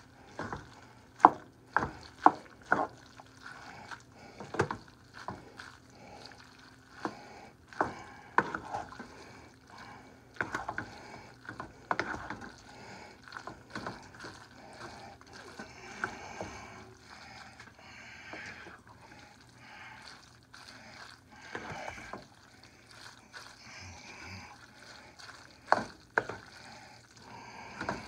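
A wooden spatula stirring and tossing spaghetti in a frying pan. Its wood knocks and scrapes against the pan at an irregular pace, mixed with wet stirring sounds from the sauced noodles.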